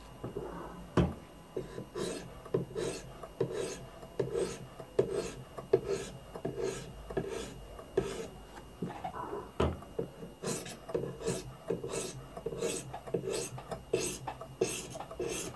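Coarse sharpening stone on a guided knife sharpener's arm rasping across a knife blade in short, light, even strokes, about two a second. These are the light passes that take off the burr after the convex edge has been set.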